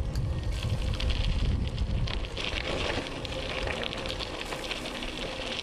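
Bicycle tyres crunching and crackling over a loose gravel road, with wind buffeting the microphone in a low rumble that eases after about two seconds.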